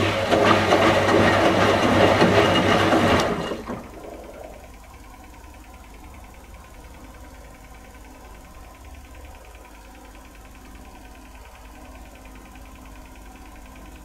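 1985 Indesit 822 washing machine on its wash cycle: the motor turns the drum and the towels tumble through the water for about three and a half seconds. Then the drum stops and rests, leaving only a low, steady background hum.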